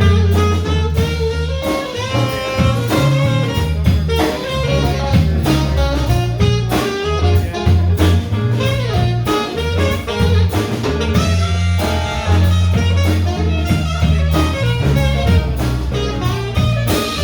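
Blues band playing an instrumental break: a steady bass line and drums under a lead instrument soloing with bent notes.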